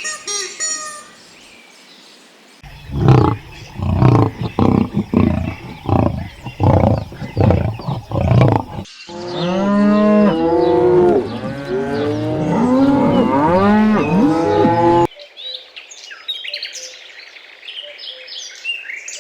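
Farm animals calling in a run of separate clips: a quick series of short calls, then a loud chorus of many overlapping calls that rise and fall in pitch, then faint high chirping near the end.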